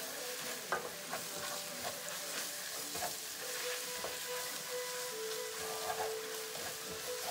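Onions and spice masala sizzling in hot oil in a ceramic-coated frying pan, with the repeated scrape of a wooden spatula stirring and mixing them.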